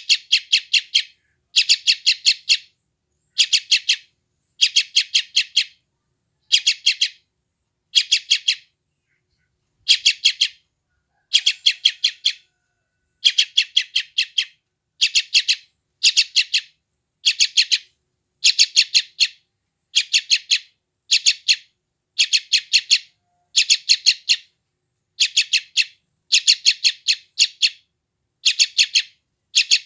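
Young yellow-vented bulbul (trucukan) giving hungry begging calls: short bursts of rapid, harsh chirps repeated about every one and a half seconds, with one slightly longer pause about nine seconds in.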